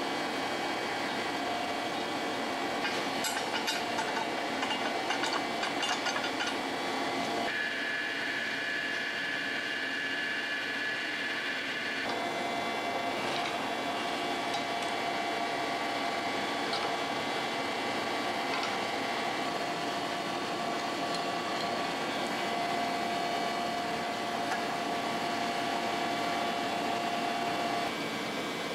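Steady workshop hum with a few held tones, changing abruptly from shot to shot, and a scatter of light metallic clicks and taps from steel parts being handled and fitted, mostly in the first several seconds.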